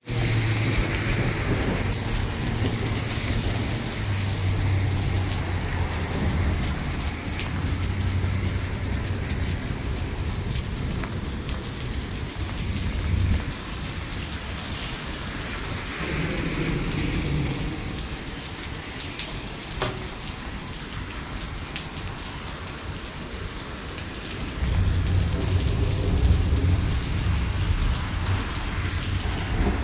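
Heavy rain pouring onto wet pavement and puddles, a dense, steady hiss of drops. A low rumble runs under it through the first half and comes back in the last few seconds.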